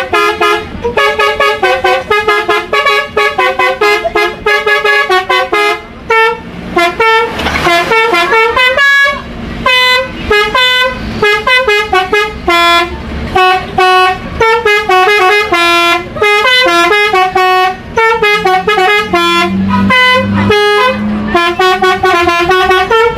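Telolet musical air horn (basuri) on an Indonesian tour bus playing a fast tune of short, loud horn notes, several a second, each jumping to a new pitch.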